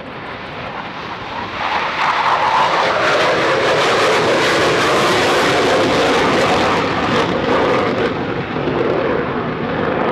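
Jet noise from a Panavia Tornado taking off on afterburner, its twin RB199 turbofans running at full power. The noise swells about two seconds in and stays loud as the jet climbs away, easing a little near the end.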